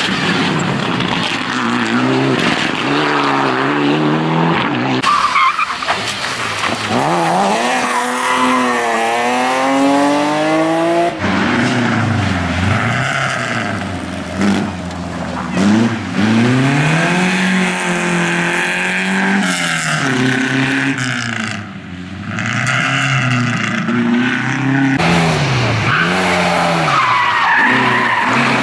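A series of rally cars, among them a Mitsubishi Lancer Evolution and Opel Kadett coupés, driven hard on a tarmac stage. The engines rev up and drop repeatedly through the gear changes, with tyre squeal. The sound changes abruptly several times as one car gives way to the next.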